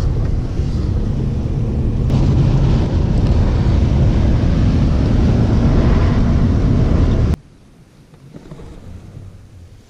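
Ford F-150 pickup truck driving through a blizzard: a loud, rough rumble of road and wind noise that cuts off suddenly about seven seconds in, leaving a faint low hum.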